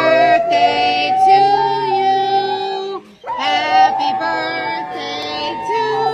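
A high voice singing two long held notes, each about three seconds, with a short break between them.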